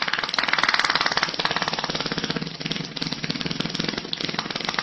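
A long fart with a fast, even, buzzing rattle.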